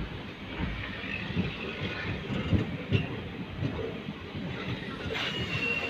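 Train coach running along the track, heard from an open doorway: wheels rumbling and knocking irregularly over the rails, with a faint high squeal near the end.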